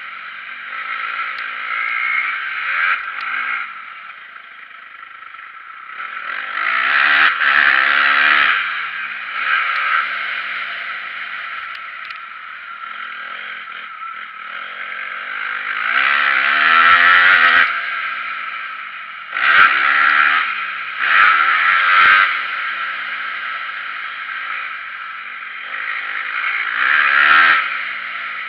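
Motocross bike engine revving up and down as it is ridden around the track, with loud bursts of throttle every few seconds and sharp clattering knocks from the bike over the bumps.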